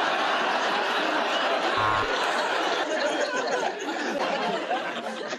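Studio audience laughing, with the crowd noise dying down near the end.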